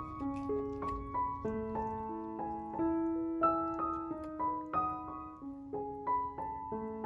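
Background piano music: a slow melody of single notes, each struck and left to ring, over a repeating lower line.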